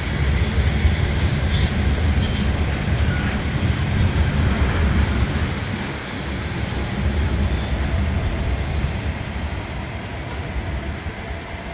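Freight train of covered hopper cars rolling past: a steady rumble of wheels on rail, with a few sharp clicks in the first few seconds, easing slightly toward the end.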